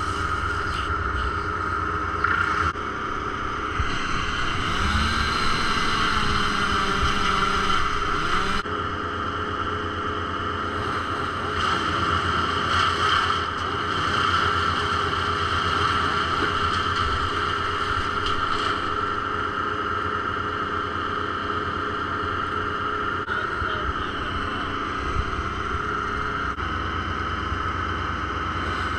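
An engine running steadily at a constant speed, with a brief rise and fall in pitch about five seconds in.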